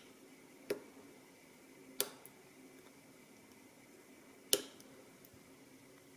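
Lock picks working in the keyway of a Master Lock Pro Series padlock: three sharp metallic clicks a second or two apart, with a couple of fainter ticks between them.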